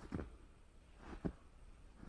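Footsteps crunching in fresh snow, two steps about a second apart.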